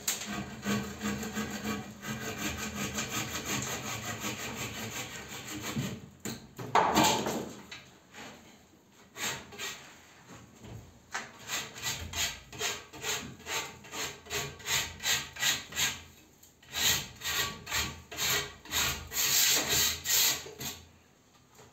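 Handsaw cutting through a gypsum plaster cornice strip. Continuous scraping for the first several seconds, a brief louder burst about seven seconds in, then even back-and-forth sawing strokes at about two to three a second.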